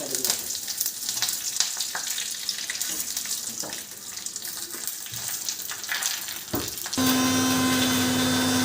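Mustard seeds crackling and spluttering in hot oil for about seven seconds. Then an electric mixer grinder switches on with a steady loud hum.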